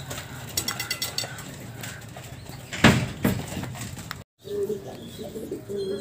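Domestic pigeons cooing in short low calls, with a couple of loud knocks near the middle and a brief dropout just after four seconds.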